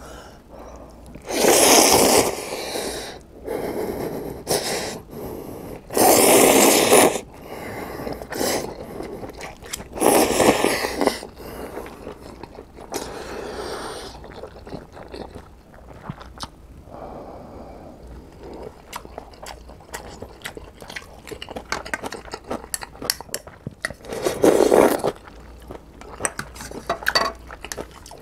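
A person slurping ramen noodles and broth in several long, loud slurps, with wet chewing and mouth clicks between them.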